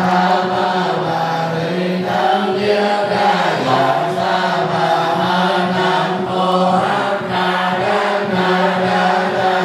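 Buddhist liturgical chanting: voices reciting a sutra in unison on a steady, near-monotone pitch with an even rhythm.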